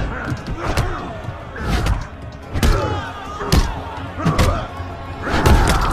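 Fight-scene sound effects: heavy punch and kick impacts landing about once a second, with a loud cluster of hits near the end, over film music.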